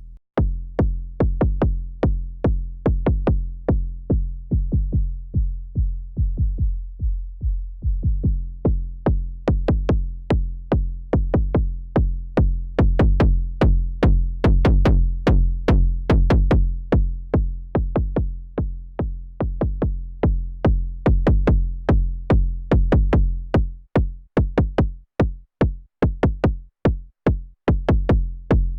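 KORG Volca Kick analog synthesizer playing a sequenced rhythm of deep electronic kick drums with pitched bass tails, each hit with a sharp click at the start. Near the end the pattern turns sparser, with short gaps between hits.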